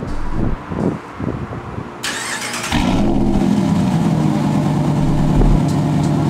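Ram 1500 pickup engine starting: a short burst of cranking about two seconds in, then the engine catches and runs steadily.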